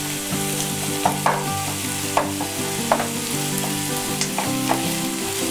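Chopped onions and green chillies sizzling as they fry in oil in a nonstick kadhai, stirred with a wooden spatula that scrapes and taps against the pan every second or so.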